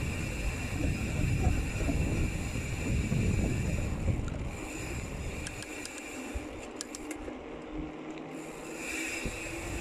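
Wind buffeting the handlebar-mounted phone's microphone, with tyre noise on asphalt, as a mountain bike coasts downhill. The rumble drops away about halfway through, and a few light ticks follow.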